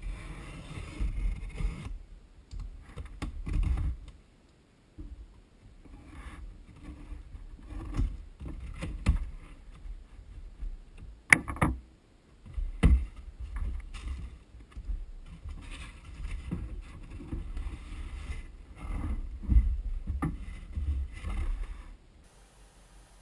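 A keyboard box and its packaging being handled: irregular rustling, dull bumps and scattered clicks, with one sharp loud click about eleven seconds in.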